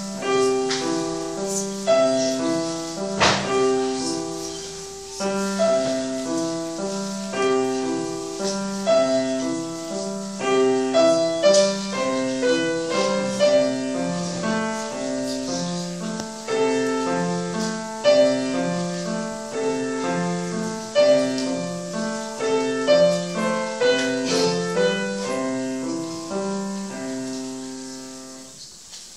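Grand piano played solo: a classical piece in a steady, even pattern of repeated notes and chords, its final notes dying away near the end.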